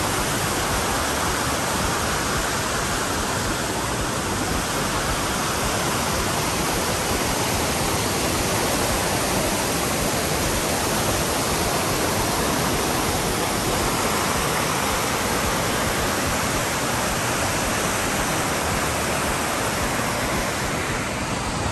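Mountain creek tumbling over boulders in a rocky cascade below a waterfall: a steady, unbroken rush of water.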